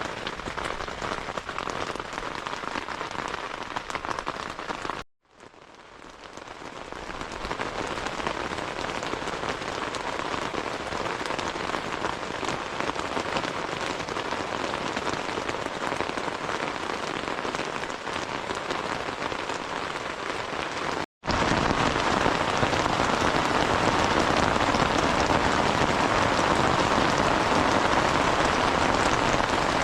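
Steady rain falling, an even dense patter. It drops out briefly about five seconds in and again around twenty-one seconds, and is louder after the second break.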